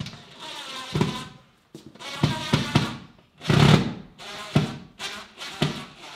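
Cordless drill driving screws through a whiteboard into a plywood wall in several short runs of about a second or less, with knocks in between as the board is handled.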